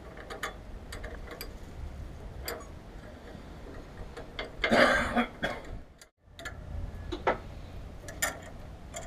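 Scattered light clicks and knocks of metal parts and hand tools being handled during engine work, with a louder clatter about five seconds in. The sound cuts out briefly just after six seconds.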